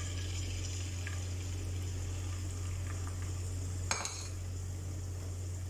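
Beaten egg frying in a thin layer of oil in a nonstick pan: a faint steady sizzle over a constant low hum, with a single brief click about four seconds in.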